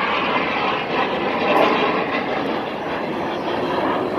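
Jet engines of display aircraft flying past overhead, heard as a steady, even rushing noise.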